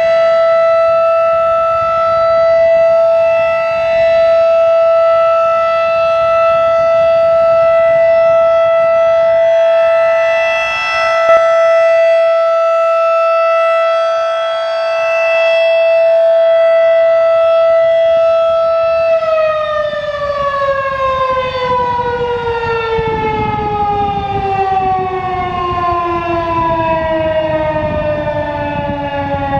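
Federal Signal 2001-DC rotating outdoor warning siren sounding its steady full-alert tone, the loudness swelling and dipping. About nineteen seconds in, the steady tone ends and the siren winds down, its pitch falling steadily as the alert signal ends.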